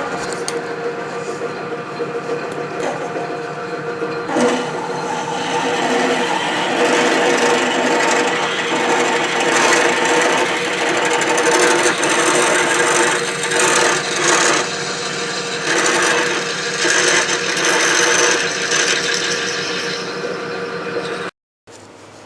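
Metal lathe running with a drill bit cutting into spinning brass stock: a steady motor and gear hum under a scratchy cutting noise that grows stronger a few seconds in and swells and eases as the drill is fed in.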